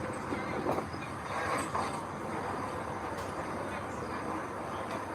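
Heavy earthmoving machinery running: a steady mechanical rumble with a few faint clicks.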